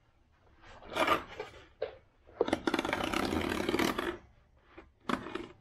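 A dull knife sawing through packing tape and cardboard on a parts box: a short scrape about a second in, then a long rasping cut of about a second and a half, and another short scrape near the end.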